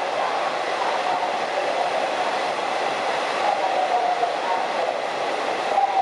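Long-distance passenger train running at speed: a steady rolling noise with a wavering whine over it.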